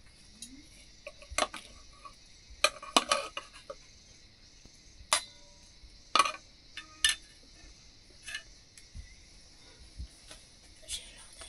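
Metal dishes and utensils clinking and knocking at irregular intervals, with a cluster of clinks about three seconds in and some strikes leaving a short metallic ring. A steady high-pitched hiss runs underneath.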